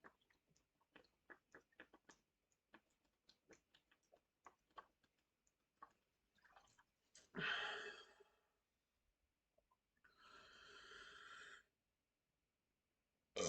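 A person's breathing: faint irregular clicks over the first six seconds, then one loud breathy exhale about seven seconds in and a softer, longer breath around ten seconds in.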